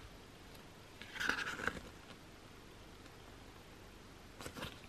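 Pages of an album photo book being turned by hand: two short paper rustles, one about a second in and a shorter one near the end.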